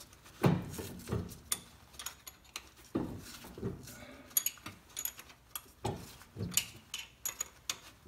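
Metal tool clicking and knocking against the rear differential carrier and cross pin as the pin is worked out of the Ford 8.8 differential. The sound is an irregular run of short, sharp metallic clicks, roughly two a second, some with a duller knock.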